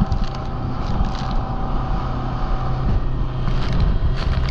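Speedboat engine running steadily at speed, a constant low hum.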